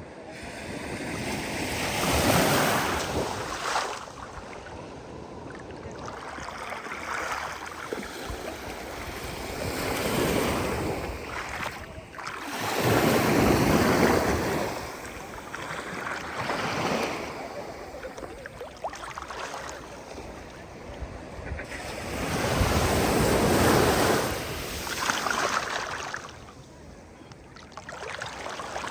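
Ocean waves breaking on the shore. The surf swells and falls away in repeated surges every few seconds, with the biggest breakers near the start, in the middle and near the end.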